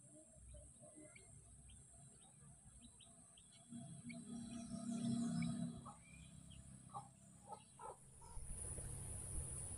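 Small birds chirping in short, repeated calls over a steady high-pitched insect drone, with a louder muffled handling rustle from about four to six seconds in.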